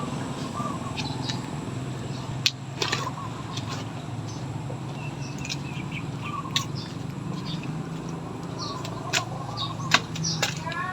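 Street ambience with a low, steady motor hum, scattered short bird-like chirps and a few sharp clicks.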